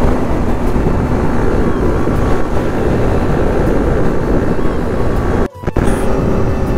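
Sport motorcycle riding at highway speed: wind rushing over the microphone on top of steady engine and road noise. The sound drops out briefly about five and a half seconds in, then carries on.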